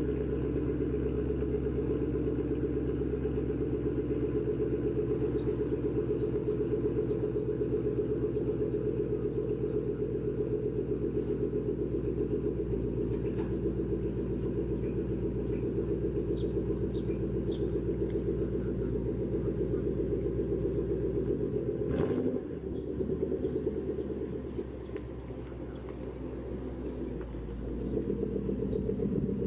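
Coyote 5.0 V8 Mustang exhaust, through Roush axle-back mufflers with the resonator deleted, running steadily with a deep rumble. About two-thirds of the way in there is a sudden knock, after which the exhaust is quieter for several seconds before coming back up near the end.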